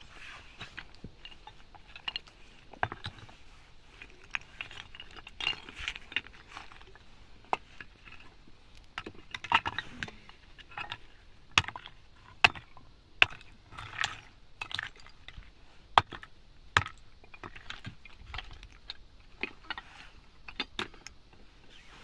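Hard objects being handled, giving irregular sharp clinks and knocks, with the loudest few knocks falling in the middle.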